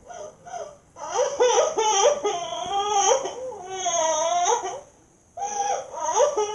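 A cartoon character's voice crying: a few short sobs, then from about a second in a long, wavering wail that breaks off, and after a short pause more sobbing.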